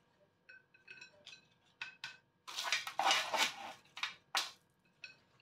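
Kitchen tongs clinking and scraping against a baking tray and plates as oven fries are served, with a longer scraping rasp in the middle and a few sharp clinks near the end.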